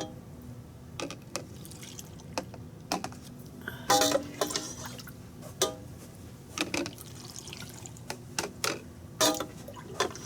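A glass quart canning jar being filled with vinegar brine and sliced cucumbers: irregular clinks and taps on the glass with liquid splashing and dripping. There is a louder, ringing clink about four seconds in and another near the end.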